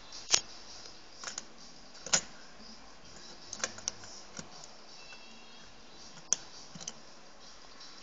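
Push buttons on an LED button board clicking as a finger presses them: about ten irregular, sharp clicks, the loudest about a third of a second in and just after two seconds.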